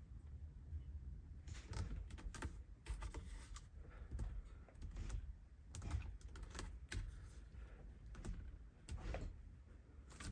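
Handling noise: irregular soft clicks and rubs, several a second, over a low rumble.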